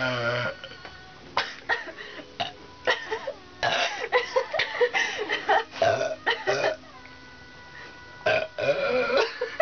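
People burping repeatedly from gulped carbonated diet soda: a string of short, irregular burps, with longer drawn-out ones right at the start and again near the end.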